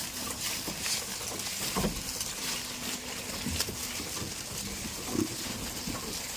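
Goats in their pen making brief low grunting sounds, the clearest about two seconds and five seconds in, among scattered small clicks and rustles over a steady hiss.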